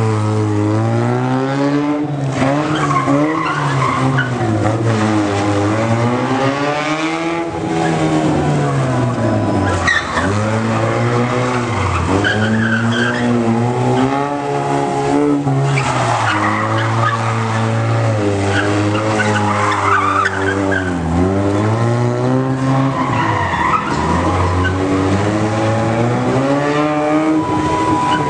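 Honda Civic hatchback driven hard through a cone slalom: the engine revs up and falls back again and again through the run, with tyres squealing in the turns.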